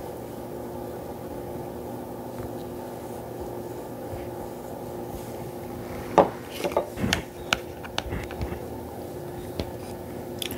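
Steady low hum of a household appliance. From about six seconds in, a scatter of light clicks, taps and scrapes comes in, as a mask brush is worked in a bowl of turmeric paste.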